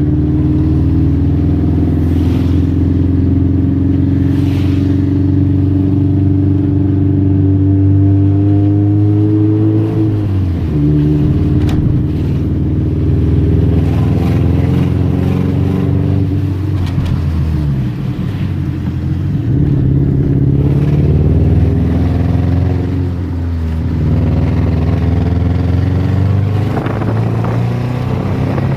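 A vehicle engine running with a steady pitch, which drops about ten seconds in, then falls and rises several times and climbs near the end, like changes in speed or revs. The owner says the engine is making strange noises.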